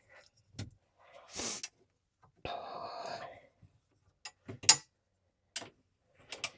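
Hand tools working the side-by-side's seat-bracket bolts: scattered sharp metallic clicks and clinks from an Allen key and bolts, the loudest clink about two thirds of the way through, with a short scraping sound about a third of the way in.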